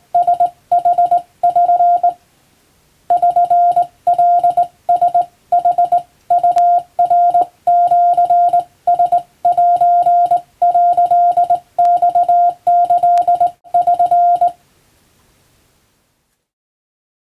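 Hand-keyed Japanese (wabun) Morse code: a single steady beep tone switched on and off in dots and dashes, grouped into characters, with a short break about two seconds in. The sending stops near the end.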